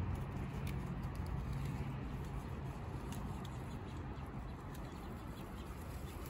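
Small goats browsing in weeds: faint scattered crunches and rustles of leaves and stems as they bite and chew, over a steady outdoor background noise. A low rumble fades out in the first couple of seconds.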